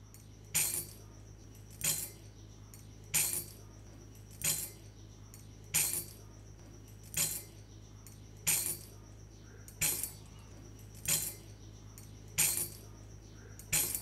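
Short metallic jingles repeating evenly, about one every 1.3 seconds, over a low steady hum.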